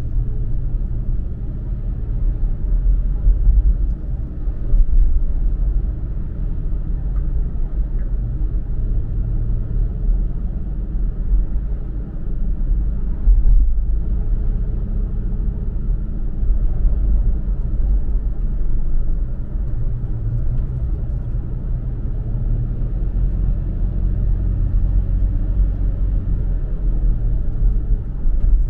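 Toyota FJ Cruiser's 4.0-litre V6 and tyres making a steady low rumble while driving at moderate road speed, with a brief dip about halfway through.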